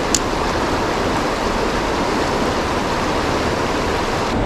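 Fast-flowing river current rushing steadily, with one short click just after the start.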